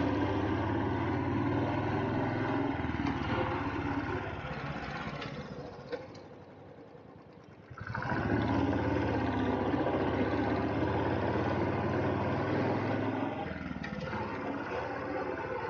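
A two-wheeler's engine running steadily under way, with road and wind noise. Near the middle the sound drops away almost to nothing for about two seconds, with a single click, then comes back at the same level.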